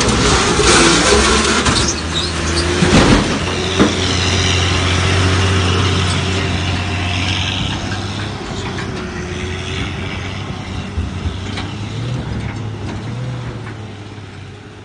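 Heavy truck engine running, with two sharp knocks or clanks about three and four seconds in; the engine sound fades away near the end.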